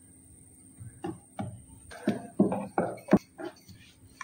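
A rolling pin and hands knocking and thumping on a plastic board as a ball of dough is pressed flat and rolled out: a string of short, dull thuds, with one sharp click about three seconds in.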